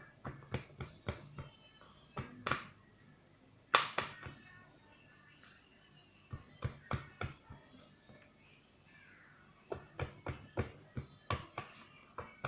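A spoon clinking and scraping against a bowl while a slime mixture is stirred to dissolve it: quick irregular taps in bursts, the loudest about four seconds in.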